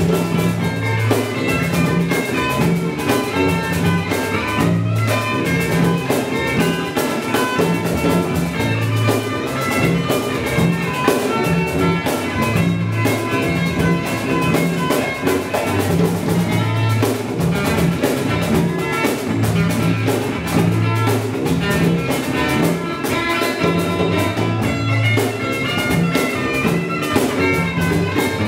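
Live acoustic band music: two acoustic guitars with a cajón and a conga keeping a steady beat.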